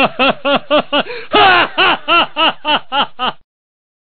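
Loud, rhythmic laughter: a quick run of 'ha-ha-ha' pulses, about four a second, that stops abruptly about three and a half seconds in.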